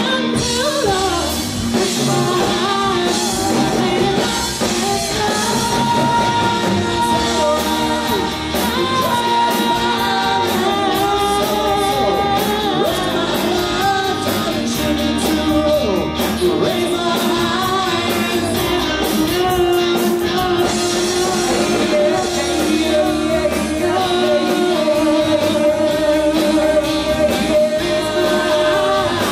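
Live band playing a song: a woman singing into a microphone over electric guitar and drums.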